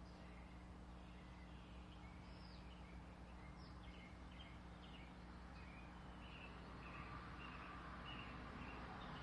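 Faint bird chirps: a string of short, high calls, a few sweeping downward, over a steady low electrical hum. A broad rushing noise, like an approaching vehicle on the street, swells near the end.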